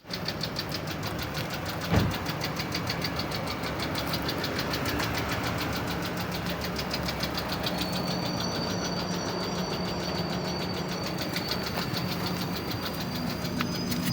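Chevrolet Cruze's 1.6 F16D3 four-cylinder engine running steadily with a rapid, even ticking knock, the kind the owner suspects of being the hydraulic lifters. A single thump comes about two seconds in, and a thin high whine joins about halfway through.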